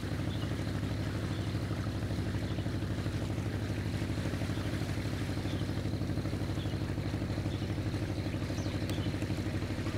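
Motorboat engine running steadily, with a fast even chugging.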